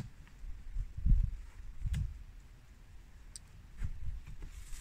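A few low bumps and faint clicks from handling at the top of a van's open front door, as a plastic wind deflector is worked into the door's window channel.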